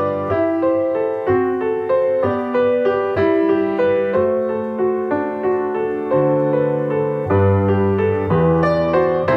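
Piano playing slow, gentle music, notes struck about twice a second over held bass notes.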